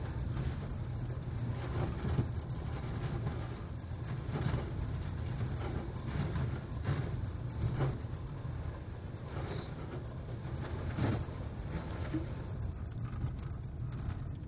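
Vehicle driving on a wet, slushy, rutted winter road, heard from inside the cabin: a steady low rumble of tyres and engine, with irregular short knocks and hits every second or two.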